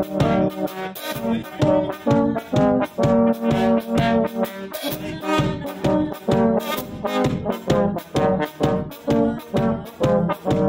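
Small brass band playing a tune: trumpets and larger brass horns carry the melody and harmony over a steady bass drum beat, about two beats a second.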